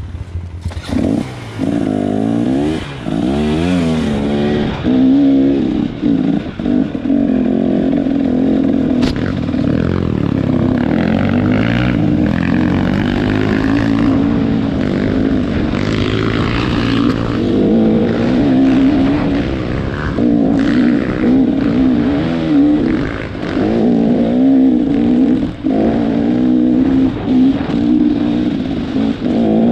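Off-road trail motorcycle engine being ridden hard, revving up and down over and over, with brief throttle cuts now and then.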